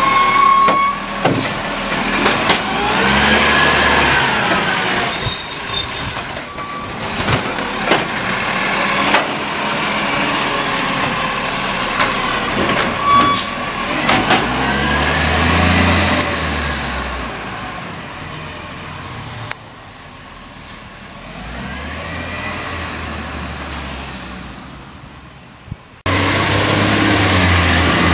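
Side-loading garbage truck at work: its diesel engine revs up and back down several times as the hydraulic arm lifts and tips a wheelie bin, with knocks and clanks from the arm and bin. Near the end the sound cuts to the truck driving past with its engine running steadily.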